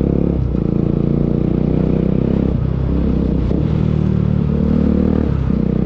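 Motorcycle engine idling steadily through an aftermarket Akrapovic exhaust.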